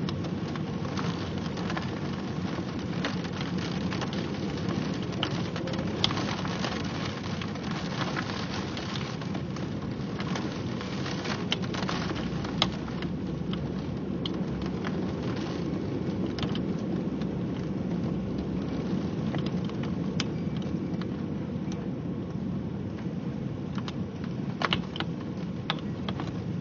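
Steady heavy rain from a thunderstorm, with many sharp drops hitting a surface close by.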